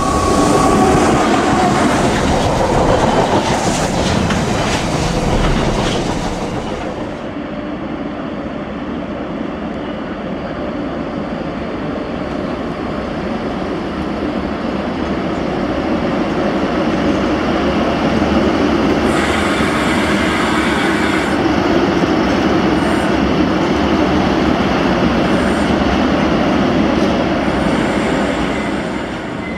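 A Class 90 electric locomotive hauling a container freight train passes close by at speed. About seven seconds in, this gives way to the steady rumble of a Freightliner Class 90 and its container wagons running past.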